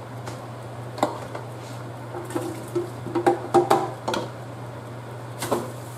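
Browned sausage slices tipped from a glass baking dish into a speckled enamel stockpot: a cluster of short clinks and knocks, some briefly ringing, as the glass dish meets the pot rim and the slices slide in, over a steady low hum.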